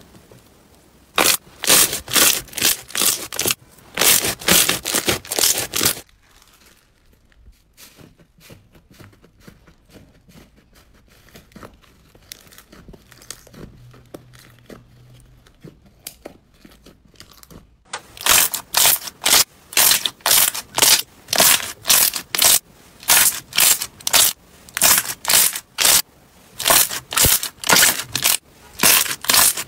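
Hands pressing and poking glossy slime, giving runs of sharp popping and crackling as trapped air bursts under the fingers. In the middle it turns much quieter, a faint soft squishing, then the loud pops start again after about 18 seconds.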